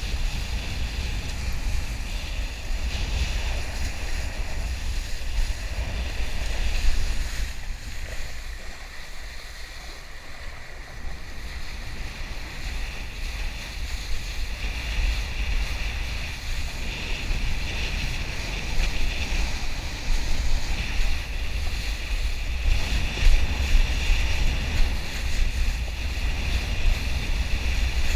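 Wind buffeting the camera's microphone with a heavy low rumble, over the hiss and splash of a kiteboard planing across choppy water. The rush eases briefly about a third of the way through, then picks up again.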